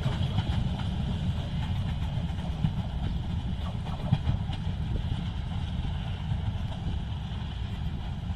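Low, steady rumble of a passenger train running away along the track, easing slightly as it draws off, mixed with wind buffeting the microphone.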